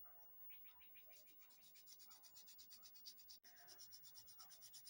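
Diamond file scraping across the edge of a silver bezel in quick, even strokes, about five a second, to flatten and true it up. The strokes are faint and start about half a second in.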